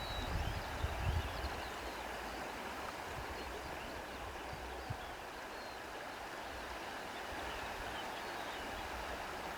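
Steady rush of a flowing stream, with faint bird chirps and a low rumble of wind on the microphone in the first second or so.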